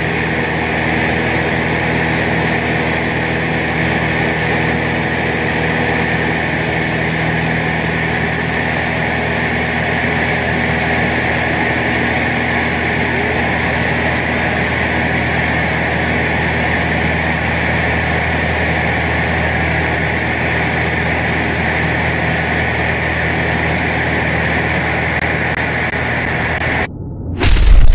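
Steady engine and propeller drone heard inside the cabin of a light propeller plane in cruising flight, holding a few even engine tones. Near the end it cuts off abruptly and a loud crashing, shattering sound effect follows.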